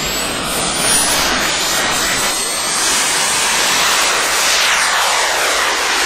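Turbine-powered model jet flying past: a loud, steady jet roar with a high turbine whine that slides down in pitch about four to five seconds in.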